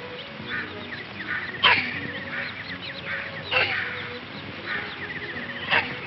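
Baby chicks peeping: faint rapid trills of little peeps, broken by three louder calls that slide down in pitch, about two seconds apart.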